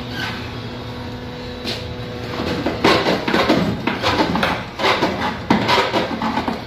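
Irregular scraping, knocking and rattling of plastic and metal parts inside a freezer compartment as its evaporator coil is worked loose and pulled out. The handling starts about two and a half seconds in, over a steady low hum.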